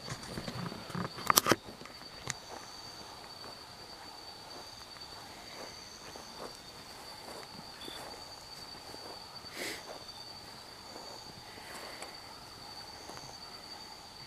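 Night insects trilling as one steady high tone, with slow footsteps on grass. A few sharp clicks or knocks about a second and a half in are the loudest sound.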